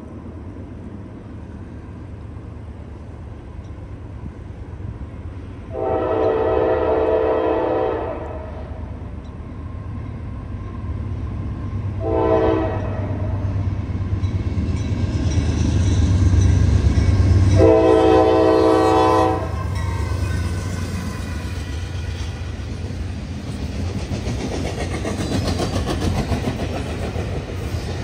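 A freight locomotive's horn blows a long blast, a short one and another long one for a grade crossing, over the low rumble of its diesel engine, which grows louder as it nears. The train then rolls past, its wheels clicking over the rail joints.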